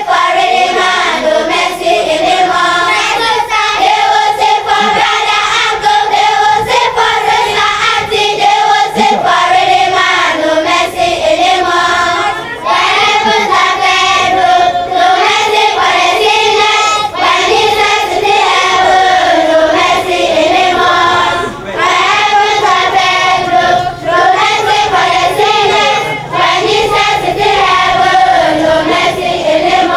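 A group of young girls singing a song together in chorus, with brief pauses between phrases.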